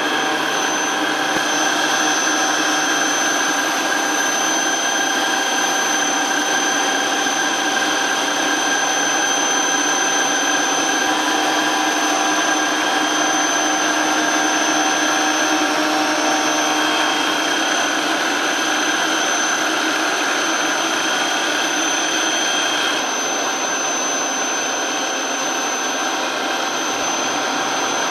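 Milling machine spindle running steadily with its cutter working the teeth of a large steel herringbone gear: a steady whine of several high tones over a noisy hiss. About three quarters of the way through the level drops slightly and the highest tones fade.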